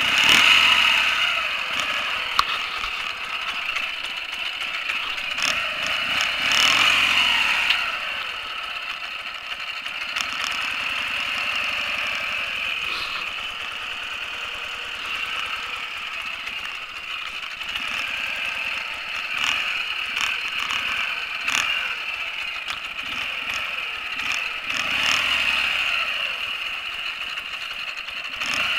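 Ural 750 sidecar motorcycle's air-cooled flat-twin engine running under way. Its pitch rises and falls a few times as it speeds up and slows: at the start, about seven seconds in, and near the end.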